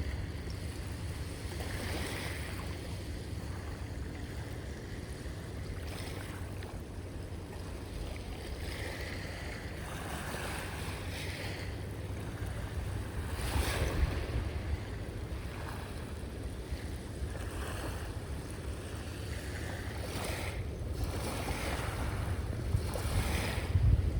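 Ocean waves breaking and washing up the shore in slow, uneven surges, with wind rumbling on the microphone.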